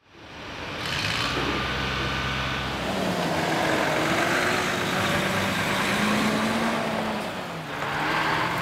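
Volvo FH articulated lorry driving past close by: its diesel engine running with a slowly shifting note, and tyre noise from the tractor and trailer wheels on the tarmac. The sound fades in at the start.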